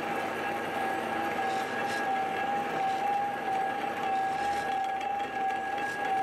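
Metal lathe parting off a spinning workpiece with a hand-ground cobalt parting tool: a steady high tone over the continuous hiss of the cut as the blade feeds in and the chip curls off.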